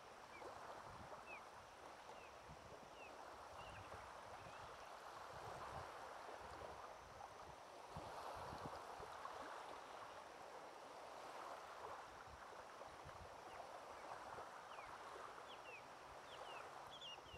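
Faint small waves lapping on a pebble shore, a soft wash that swells and eases, with a few faint high bird chirps scattered through.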